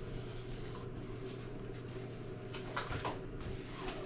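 Steady low mechanical hum, with a few faint sounds around three seconds in.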